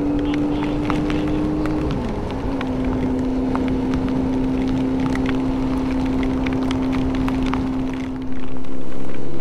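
Motorcycle engine running at a steady cruise while riding in rain, its note dropping once about two seconds in, then holding. Wind rushes over the microphone and grows louder near the end, with scattered raindrop ticks throughout.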